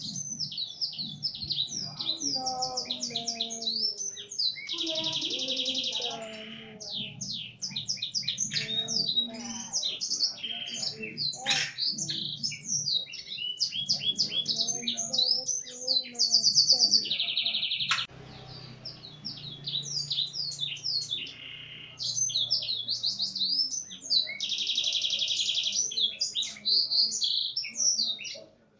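A domestic canary singing a long, fast song of rapid trills, chattering runs and buzzy rolls, filled with phrases learned from black-throated canary (blackthroat) song. It breaks off briefly about two-thirds of the way in, then resumes.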